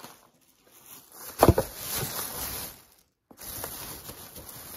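Plastic shopping bag rustling and crinkling as it is handled, with one sharp knock about a second and a half in.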